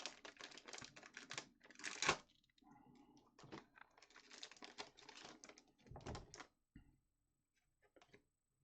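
Wax-paper trading card pack being torn open and the cards handled: dense crinkling and clicking, a sharp crackle about two seconds in, then scattered rustles that die away to faint ticks over the last couple of seconds.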